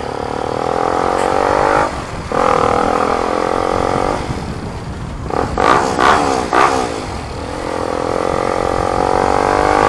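Motorcycle exhaust through a newly fitted muffler while riding and accelerating: the engine note rises, drops at a gear change about two seconds in, climbs again, swings quickly up and down a few times around the middle, then climbs steadily again. A low rumble runs underneath.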